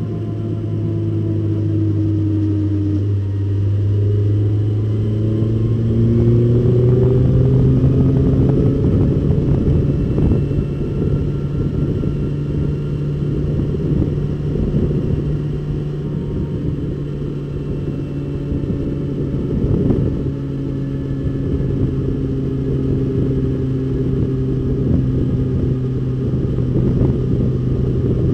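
Datsun 510 race car's engine heard from inside the stripped cabin, pulling up in pitch over the first few seconds and then running steadily under load, with rough rattling noise over it.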